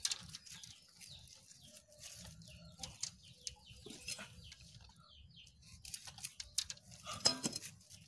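Small clicks and rustles of thin bamboo sticks and plastic raffia string being handled and tied together, over faint bird chirps in the background.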